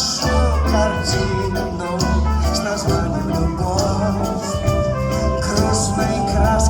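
Live band playing a song, with a singing voice over held bass notes.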